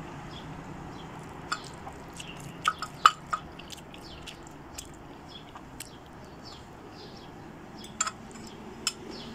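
Eating sounds: chewing, with a handful of light, scattered clicks of a metal fork against a ceramic bowl, over a faint steady background hiss.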